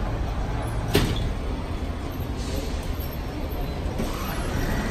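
Steady low rumble of road traffic and idling buses at an airport terminal curb, with a single sharp knock about a second in.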